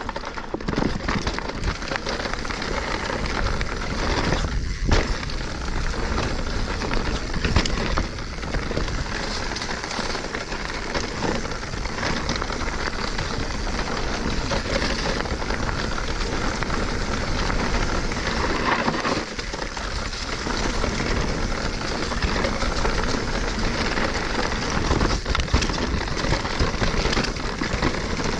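Mountain bike descending a dirt singletrack: a continuous crackling rush of tyres over dirt and roots, with frequent short clicks and knocks from the bike rattling over rough ground.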